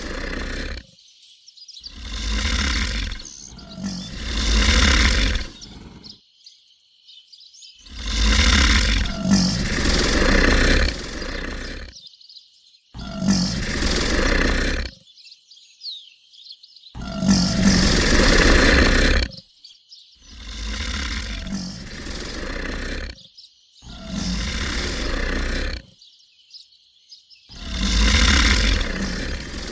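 Crocodile calling: a series of deep bellows, each one to four seconds long, with short silent breaks between them.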